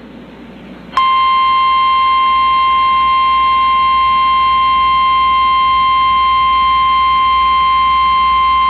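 NOAA Weather Radio warning alarm tone: a single loud, steady high-pitched tone with a buzzy edge from its overtones. It starts abruptly about a second in, after a second of radio receiver hiss, and signals that a warning message is about to be broadcast.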